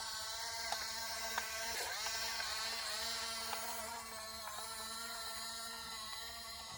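Remote-control toy construction vehicle running with a steady engine-like hum, broken by a few light clicks.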